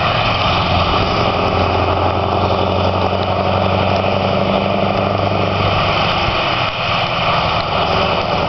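Scania R500 truck's V8 diesel engine idling with a steady low hum. Its note changes briefly about two-thirds of the way through.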